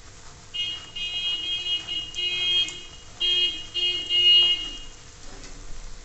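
A loud horn-like tone at one steady pitch sounds four times, the first stretch about a second and a half long and the others shorter, starting about half a second in and stopping near five seconds. Beneath it is a faint sizzle of bread frying in hot oil in a non-stick kadhai.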